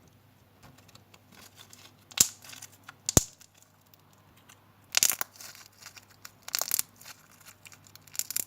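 Small homemade slime, made from a face mask, being squeezed and stretched by hand: about five sharp, sticky crackles and pops spread over several seconds, with quiet handling noise in between.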